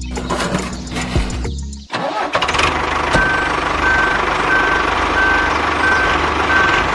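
Background music, then about two seconds in a truck engine starts and runs steadily, with a reversing alarm beeping about one and a half times a second.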